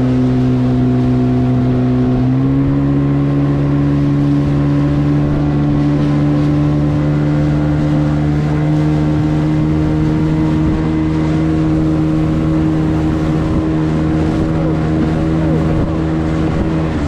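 Small speedboat's engine running hard at speed, its pitch stepping up about two seconds in and then holding steady, over a rush of wind and water.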